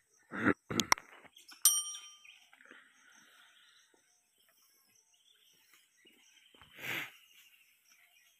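Mouse-click sounds and a ringing bell ding from a subscribe-button animation, the ding about two seconds in. Short harsh calls from gray langurs come around half a second and one second in, and another about seven seconds in.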